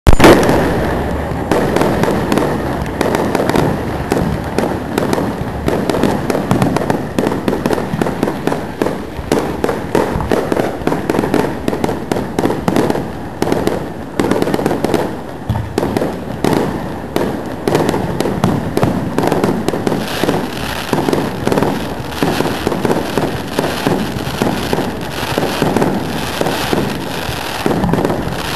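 Aerial fireworks display: a dense, unbroken run of shell bursts and crackling reports, several a second, with a loud bang right at the start.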